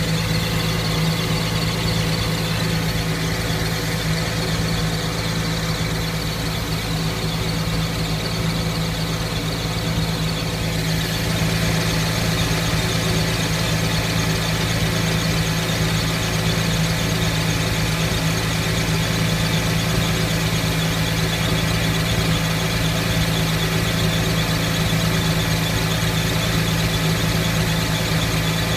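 Porsche 911 (997.1) with its flat-six running steadily and a persistent squeak over the engine note, getting a little louder about eleven seconds in.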